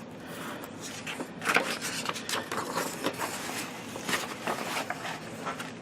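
Paper pages of a colouring magazine rustling as they are turned and handled: a run of irregular crackles.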